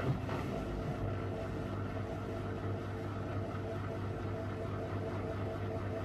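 Miele W5877 washing machine running: a steady motor hum with a few held tones, firming up about a second in.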